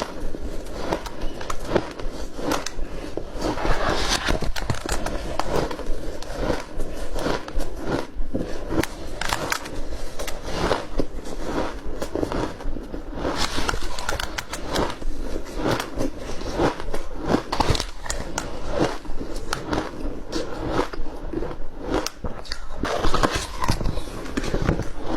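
Close-up crunching of flaky white ice being chewed, a dense, unbroken run of sharp cracks and crackles.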